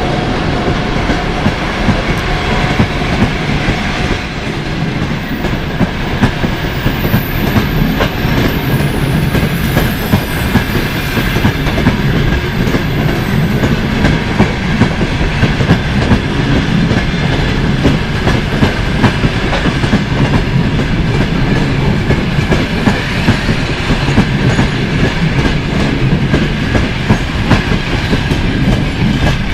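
Passenger train pulling out behind a ChS4T electric locomotive, its coaches rolling past with wheels clacking over the rail joints in a steady stream of clicks over a continuous rumble.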